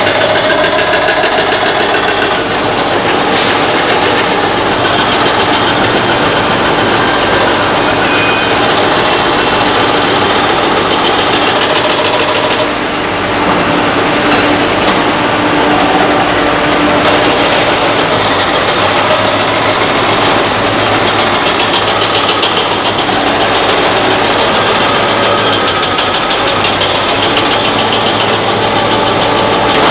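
Diesel engines of construction machinery running steadily, among them a hydraulic crawler excavator working. The sound drops briefly and changes about 13 seconds in.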